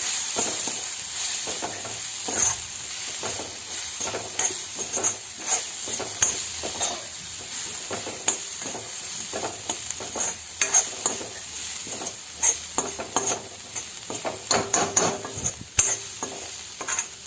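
Shallot, tomato and garlic masala with freshly added spice powders sizzling in oil in a pan while it is stirred, with frequent irregular clicks and scrapes of the utensil against the pan.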